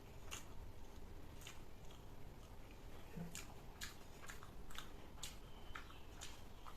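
A person chewing food close to the microphone, with irregular wet mouth clicks about twice a second.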